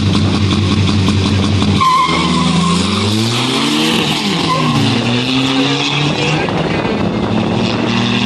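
Two tuned VW Polos, a TDI diesel and a big-turbo GTI, held at steady revs on the start line, then launching about two seconds in with a brief tyre squeal. Their engines rise in pitch, drop back at each gear change and rise again as they accelerate away.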